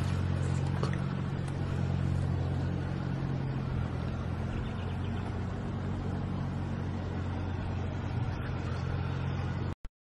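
An engine or motor running steadily, a low even drone, which cuts off abruptly near the end.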